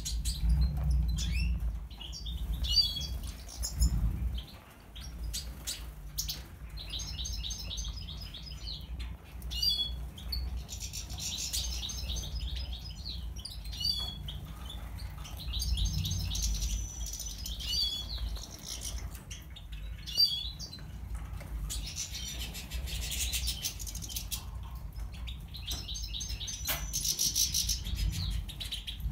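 European goldfinches in an aviary chirping and twittering, with short call notes and longer bursts of song, and now and then wings fluttering. A steady low rumble lies under the birds.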